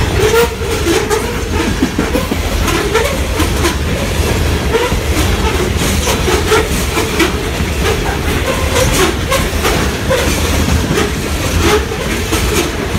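Train cars rolling past: a steady loud rumble with the wheels clattering over rail joints, and short wavering squeals mixed in.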